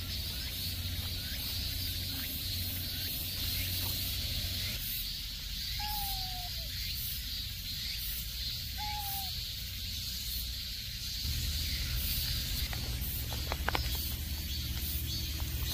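Outdoor ambience: a steady high hiss, with two short falling calls about six and nine seconds in and a few sharp clicks near the end.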